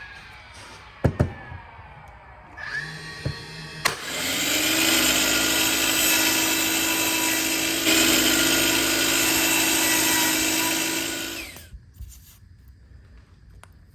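Power tool spinning up, running steadily for about seven seconds, then winding down, after a few sharp knocks.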